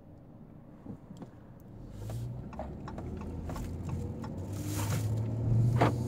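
Car engine and road noise, a low hum that builds over the last few seconds as the car pulls away, with scattered light clicks and knocks.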